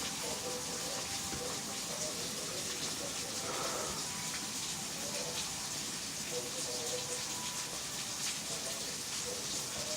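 Steady rain falling, an even hiss without any thunder.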